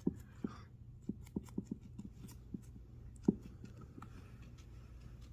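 A pet crunching raw carrot, with irregular bites and crunches, most in the first two seconds and the loudest a little past three seconds in, over a steady low hum.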